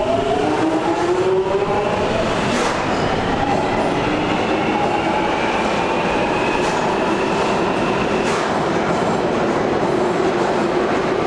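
London Underground Jubilee line train pulling away: the traction motor whine rises in pitch for about the first second, then holds steady over the train's running noise.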